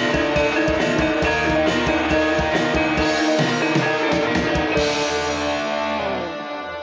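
Loud ensemble music with sustained pitched instruments over steady drumming. About five seconds in the drumming stops on a crash, and ringing notes fade out.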